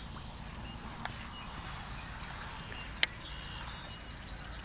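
A baitcasting reel being worked gives two sharp clicks: a small one about a second in and a much louder one about three seconds in. Wind rumbles on the microphone throughout, with faint bird chirps.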